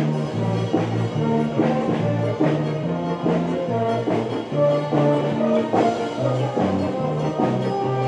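Music with brass instruments over a bass line that steps from note to note.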